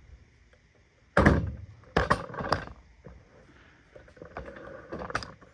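A few dull thumps and knocks. The loudest comes about a second in, sharper ones follow at about two and two and a half seconds, and softer ones come near the end.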